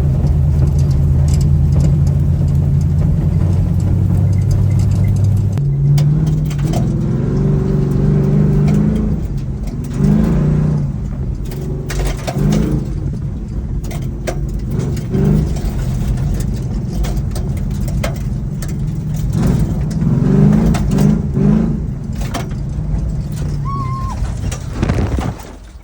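Truck engine working hard on a dirt track: a steady drone for the first few seconds, then the revs rise and fall again and again.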